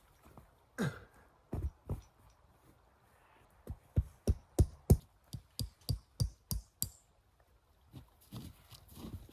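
A series of sharp knocks or blows: a few scattered ones, then a quick regular run of about a dozen, roughly three a second, then a few faint ones near the end.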